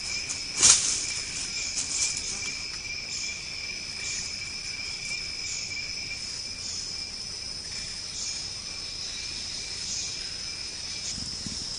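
Forest insect chorus: a steady high shrill in two pitches, with short falling chirps repeating about once a second above it. A sharp click sounds about a second in.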